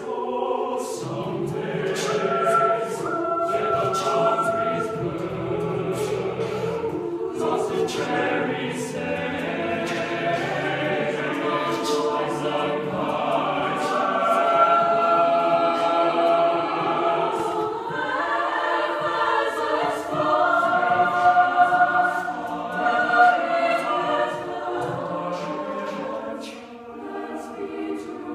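Mixed chamber choir singing a cappella in sustained, shifting chords, with short sharp clicks of vocal percussion on top. The singing drops to a quieter passage near the end.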